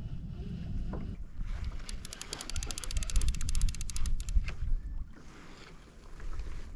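Fishing reel's drag (clutch) ratcheting in a rapid, even run of clicks as a hooked tope pulls line off. The clicking starts about a second and a half in and stops about five seconds in, over low wind rumble on the microphone.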